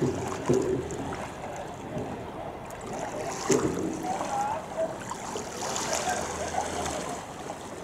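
Coxed four rowing shell passing on a river: a steady rush of water from the hull and oars, with a couple of louder swishes and faint, indistinct voices now and then.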